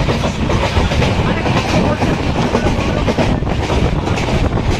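Passenger train running along the track, heard from on board: a steady rumble and rattle of the wheels and carriage.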